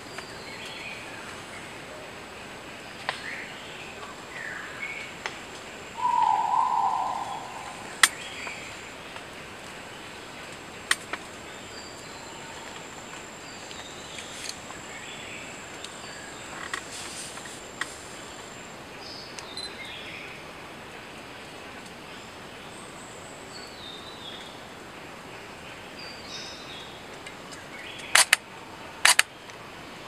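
Outdoor background with faint, scattered small-bird chirps and a few sharp clicks. About six seconds in, one loud, steady-pitched sound lasts about a second.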